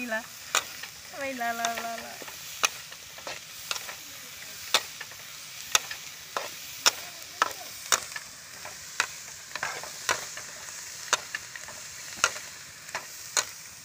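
Metal spatula stirring small shrimp in a wok, with sharp clinks of the spatula against the pan roughly once a second over a steady sizzle of the frying shrimp.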